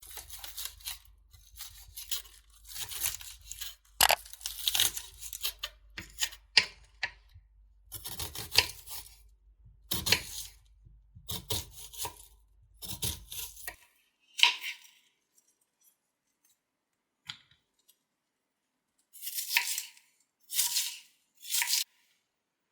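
Repeated short tearing and rustling sounds in quick bursts, over a low hum that stops about two-thirds of the way in, followed by a few scattered bursts.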